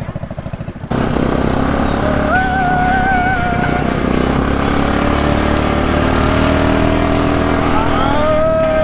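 ATV engine idling with an even pulse, then about a second in the throttle opens and it runs loud under load as the quad drives off, with steady rumble and wind noise. A wavering high tone sounds twice over it.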